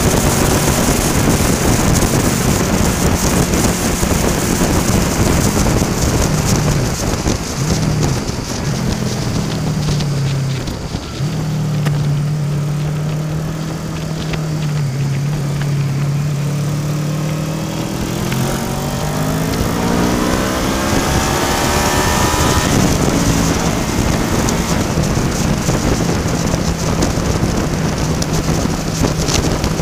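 Honda VFR800 VTEC's V4 engine heard from the rider's helmet over steady wind rush. The engine note steps down through a few downshifts, runs low and steady while leaning through a roundabout, then climbs as the bike accelerates away, drops sharply at an upshift, and settles to a steady cruise.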